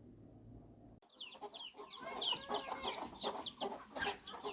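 Native country chickens: a flock of chicks peeping in rapid, high, downward-sliding cheeps over low hen clucking, starting suddenly about a second in after a near-silent moment.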